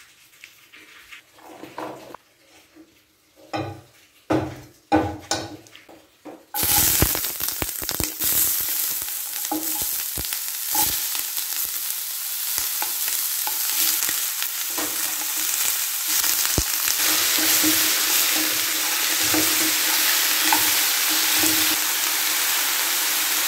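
A few light knocks and clinks of kitchen utensils, then a sudden loud sizzle as chopped peppers go into hot olive oil in a pan. The sizzling runs on steadily, with occasional clicks from stirring.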